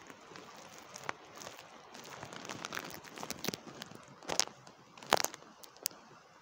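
Scattered raindrops ticking and crackling irregularly over a faint steady hiss, with two louder taps a little after four and five seconds in.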